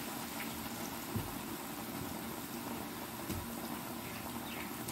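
Batter-coated naan pieces deep-frying in a pan of hot oil: a steady sizzle.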